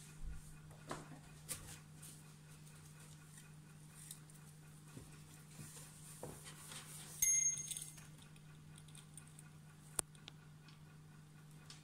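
Pet chinchillas rustling and scratching about in wood-shaving bedding and hay, with scattered small clicks and taps over a steady low hum. About seven seconds in comes a brief, louder clatter with a ringing tone, and there is a single sharp click near the end.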